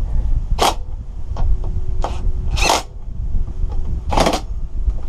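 Handling noises from refitting a lawnmower carburettor: four short scrapes of metal parts and a hand tool, spread out over a few seconds, over a steady low rumble.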